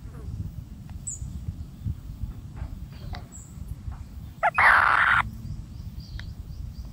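Black-shouldered kite feeding on a mouse: soft clicks and rustles of beak and feathers over a low rumble, with a loud half-second hissing rustle about four and a half seconds in. A few faint high chirps sound now and then.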